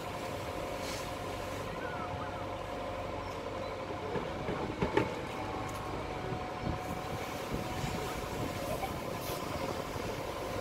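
A fire engine's engine and pump running steadily with a level hum, feeding a hose trained on a burning car. A sharp knock comes about five seconds in.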